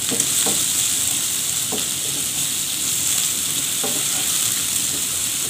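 Sliced onions sizzling in hot oil in a nonstick frying pan, a steady hiss, stirred with a spatula at the start, with a few faint ticks.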